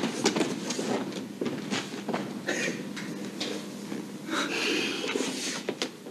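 Irregular soft footsteps with the rustle of clothing, over a faint hiss. A louder rustle comes about four and a half seconds in.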